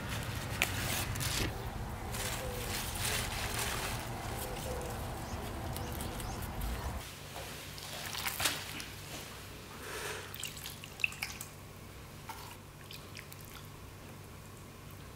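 Lettuce leaves rustling and snapping as they are picked by hand, over a low steady rumble. About seven seconds in this gives way to sliced raw duck meat sliding with a soft squish into a stainless steel mixing bowl, a few light clinks of steel on steel, and then plum extract poured in a thin trickle from a measuring cup.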